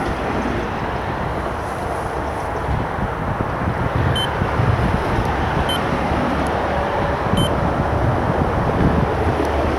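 Steady rumble of road traffic on a busy nearby road bridge, with wind buffeting the microphone. A short high beep sounds three times, about a second and a half apart, midway through.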